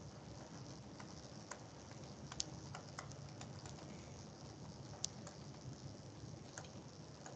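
Faint, irregular clicks and taps of handwriting being put onto a computer whiteboard, over a low steady hum. Two sharper clicks stand out, about two and a half seconds and five seconds in.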